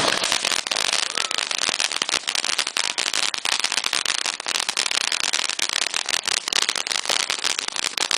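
Ground fountain firework spraying sparks, giving a dense, steady crackle of many small pops over a hiss.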